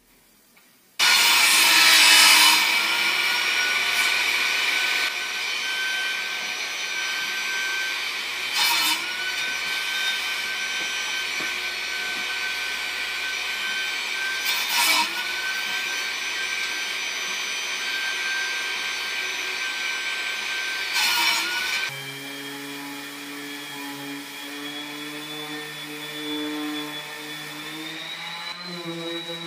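Table saw starting up and running, making three crosscuts through pine boards with a wooden crosscut sled, about six seconds apart. Each cut is a short rasp, and the blade's whine dips briefly as it takes the load. About two-thirds of the way in the saw sound stops and a quieter, steady hum of several tones takes over.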